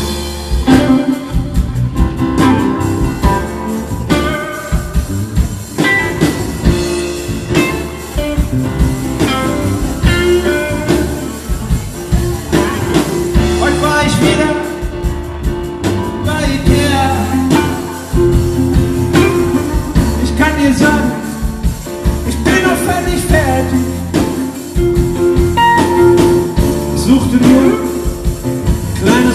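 Live band playing a song with a male lead singer, electric guitar, bass guitar, keyboards and drums.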